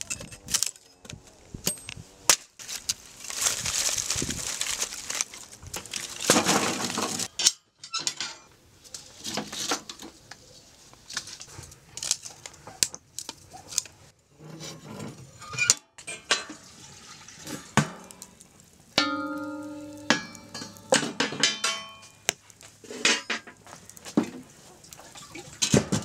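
Kitchen clatter: pots and utensils knocking and clinking, with scattered sharp knocks and a longer stretch of rustling noise, and a brief ringing clang near the end.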